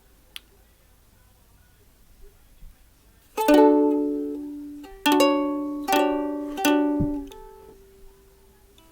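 A strummed acoustic stringed instrument: four chords strummed one at a time, about three and a half, five, six and six and a half seconds in, each left to ring and fade, as chords are tried out before a song. A small click comes just before them.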